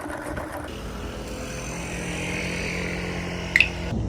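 Steady vehicle or traffic noise with a low engine hum, cut by a brief, sharp high squeak or screech about three and a half seconds in.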